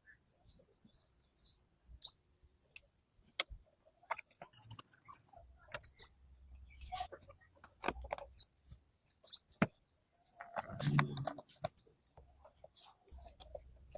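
Scattered light clicks and taps at irregular intervals, with a few short high chirps and a brief, fuller sound about eleven seconds in.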